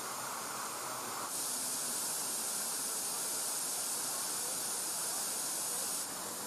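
Steady outdoor hiss with no distinct events. It turns brighter and higher about a second in and drops back near the end.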